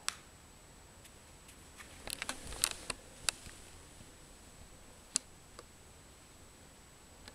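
Sharp clicks and handling noise from a hand-held camera and a small infrared remote control being handled. There is one click at the start, a cluster of clicks about two to three seconds in, and one more about five seconds in, over a faint steady high whine.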